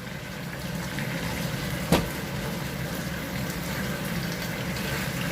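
Chicken in hoisin sauce boiling and bubbling steadily in the pan over a raised flame as the gravy reduces. There is one sharp click about two seconds in.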